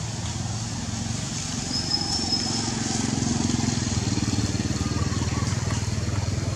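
A small engine running steadily, with a rapid even pulsing, growing a little louder about three seconds in. A brief high chirp sounds about two seconds in.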